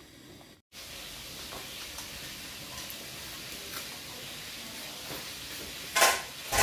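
Water boiling hard in a large pot of pork leg: a steady bubbling hiss with small pops. The sound cuts out briefly under a second in, and a short louder noise comes near the end.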